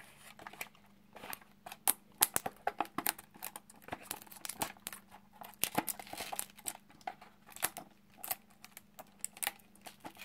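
Plastic crinkling and crackling with scattered sharp clicks as fingers work at the edge of a Samsung Gear VR headset's glossy front cover, handling its plastic shell.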